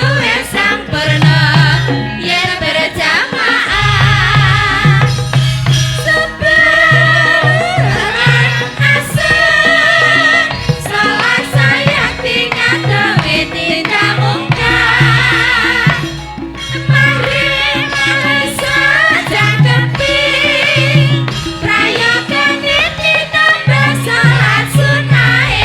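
Javanese gamelan music with hand-played kendang drumming and a wavering, ornamented high melody line.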